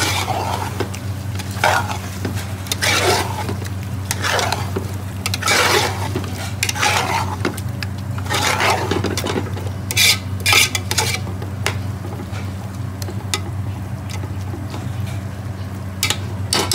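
A metal spatula stirring and turning chicken pieces in a large aluminium stockpot, scraping and clanking against the pot in irregular strokes about once a second, over a steady low hum.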